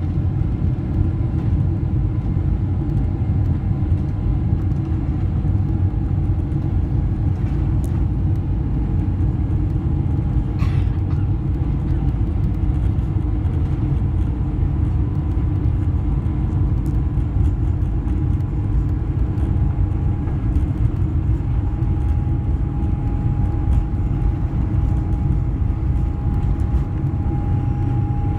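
Steady low rumble in the cabin of a Boeing 777-300ER taxiing, from its GE90 engines and rolling gear. A faint steady whine comes in during the second half.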